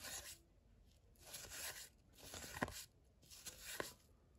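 Baseball cards being flipped through by hand, one at a time off a stack: a few faint card-on-card sliding swishes about a second apart, a couple with a light snap as a card comes free.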